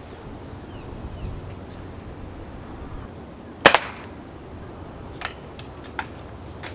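.22-calibre break-barrel air rifle fired once: a single sharp crack about three and a half seconds in, with a second short snap right after it. A few lighter clicks follow near the end.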